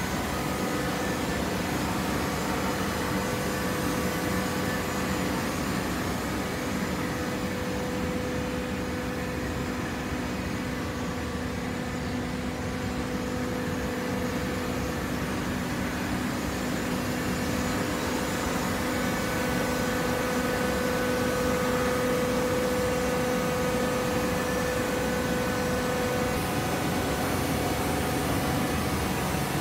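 Horizontal hydraulic baler running: a steady machine hum with several sustained whining tones from its electric motor and hydraulic pump, a little louder in the second half.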